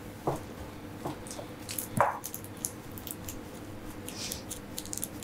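Faint, soft squishing and a few light taps as a sticky raw almond-and-chia crust mass is pressed by moistened gloved hands into a parchment-lined cake tin. A faint steady hum runs underneath.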